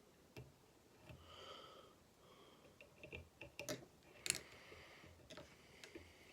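Faint, scattered clicks and ticks from fly-tying tools and materials being handled at the vise, the sharpest about four seconds in, with a soft breath or sniff about a second in.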